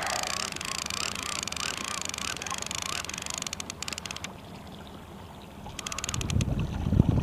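Trolling multiplier reel being cranked, line coming in under load: a whir that swells and fades over and over, then two short spells of rapid clicking from the reel. Near the end, wind and water rumble grows louder.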